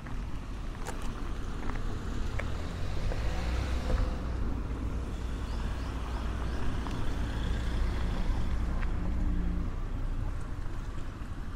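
A motor vehicle running and driving by at low speed, its low engine rumble building about three seconds in and fading near the end, with a few light clicks.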